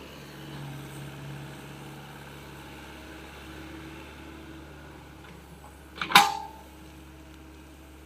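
SDLG mini excavator's diesel engine running steadily, with a single sharp metallic clank about six seconds in as the bucket strikes the ground.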